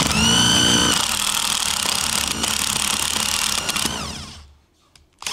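Ryobi CID-1100 corded impact driver boring into softwood with a 40 mm Forstner bit: it spins up with a rising whine, then runs steadily and loudly under load with its hammer mechanism impacting. It winds down and stops about four and a half seconds in.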